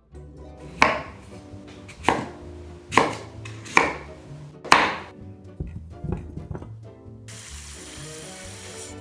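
Kitchen knife chopping through a raw sweet potato onto a wooden cutting board: five sharp strikes about a second apart, then a few lighter knocks. From about seven seconds in, tap water runs into a steel saucepan holding the cut pieces.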